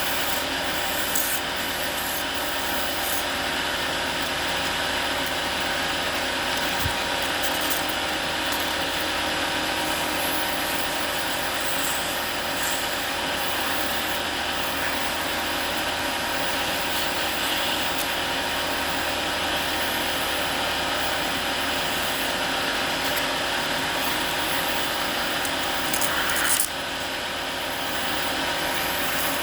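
Wood lathe running steadily while a cutting or sanding tool rubs and scrapes against a spinning wooden bottle cap being turned. Near the end it swells briefly louder, then settles a little quieter.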